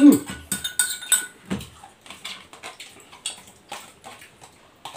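A fork clinking and scraping against a bowl of noodles, a string of short light knocks and clicks, the loudest right at the start.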